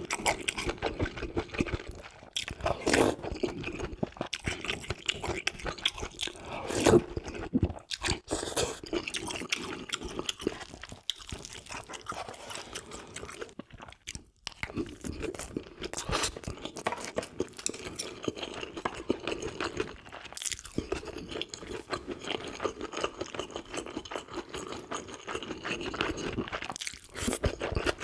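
A person chewing and crunching food: an irregular run of wet clicks, smacks and crunches, with a few louder bites.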